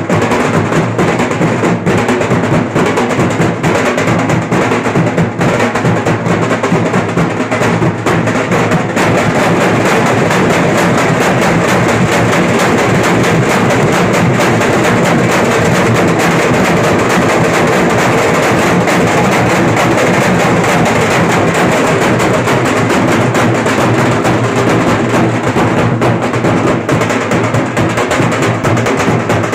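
A Maharashtrian dhol pathak ensemble plays loud, dense drumming together on many large steel-shelled barrel dhols beaten with sticks. About nine seconds in, the beat thickens into a steadier, more continuous roll.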